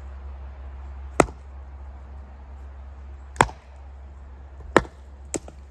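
Axe chopping into a piece of cedar firewood to split it: four sharp strikes a second or two apart, the last one lighter.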